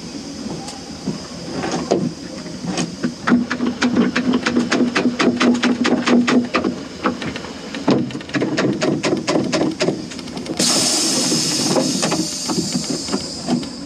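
One-handed ratcheting bar clamp (quick-grip type) being squeezed tight, a long run of quick clicks from its trigger mechanism. A steady hiss comes in near the end.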